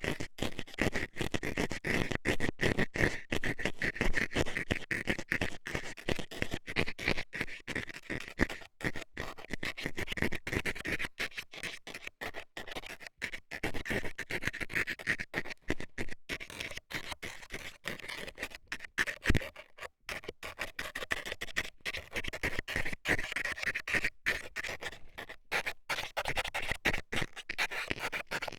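A metal dental scaler scratching and scraping an ear in quick, continuous strokes, close to the microphone, in ASMR ear cleaning.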